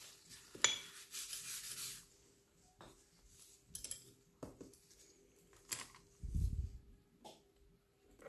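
Faint handling of small objects on a tabletop: a sharp click, a short rubbing hiss, scattered light taps and a dull low thump, over a faint steady hum.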